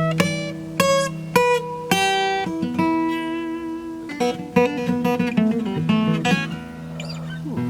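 Guitar being played: separate plucked notes that ring out and fade, then a quicker run of notes from about four seconds in.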